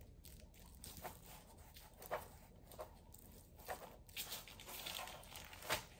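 Faint, scattered soft pats and rustles, about six in all, as a hand sprinkles salt over a rack of rub-coated ribs and pats it in on parchment paper.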